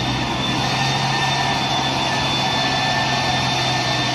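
Mitsubishi Fuso tanker truck's diesel engine running steadily as the truck crawls through deep mud. It makes a low, even hum with a thin steady high tone above it.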